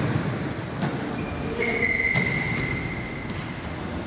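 Indoor football game in a sports hall: a few sharp ball kicks or knocks echo over a noisy hall background. Steady high-pitched squeals sound over them, one near the start and a longer one from about a second and a half in.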